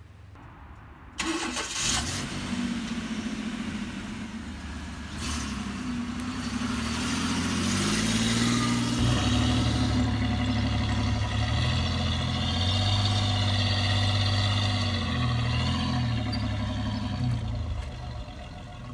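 Engine sound of an RC model car starting up about a second in and then running, its pitch shifting up and down as it drives, with a wavering higher whine in the second half.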